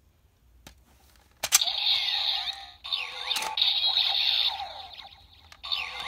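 Kamen Rider Ghost Driver toy belt playing its electronic sound effects through a small, thin-sounding speaker: a click about a second and a half in, then sweeping, gliding synthesized tones that break off briefly, fade, and start again near the end.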